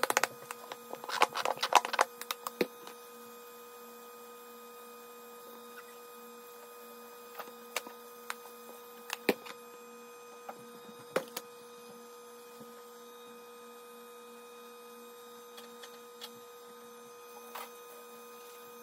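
A steady electrical hum, with a cluster of clicks and rustles about a second in and scattered light taps after it, as a butter knife and bread are handled on a plastic cutting board.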